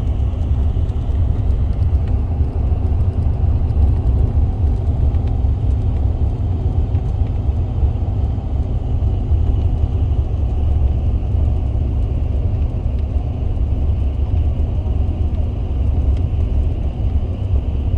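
Car driving at highway speed, heard from inside the cabin: a steady low rumble of road and engine noise with no changes.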